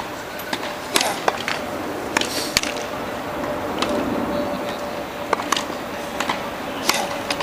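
Tennis balls being struck by racquets: irregular sharp pops, some under half a second apart, others a second or more, over low voices.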